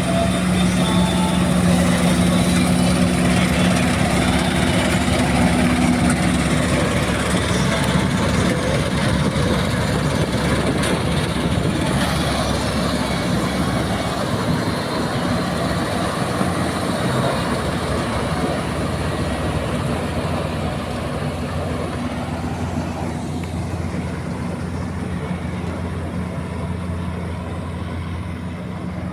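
Combine harvester running while cutting wheat: a steady engine hum under a dense mechanical clatter, growing gradually quieter over the second half.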